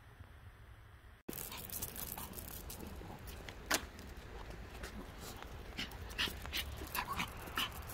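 A small Maltese dog on a leash panting and giving short whimpers, over a stream of quick clicks and scuffs of steps on paving. The dog sounds begin about a second in, after faint room tone, and the whimpers come more often near the end.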